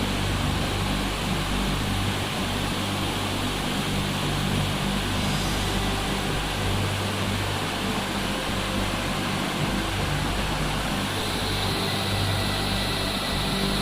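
Steady rushing roar of a waterfall, an even, unbroken wash of noise at a constant level.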